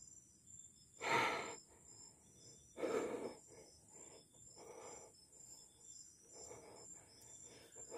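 A person breathing heavily close to the microphone, about four slow breaths a couple of seconds apart. Faint, regular insect chirping runs underneath.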